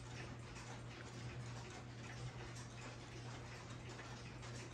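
Pendulum clocks ticking steadily, with a steady low hum underneath.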